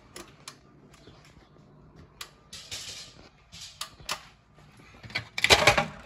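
Handling noise: a string of sharp clicks and short scraping rubs, the loudest a scrape near the end.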